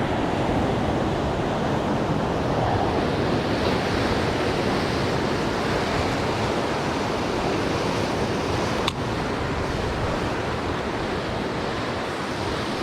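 Ocean surf washing against a rocky shoreline, a steady rush of water, with one brief click about nine seconds in.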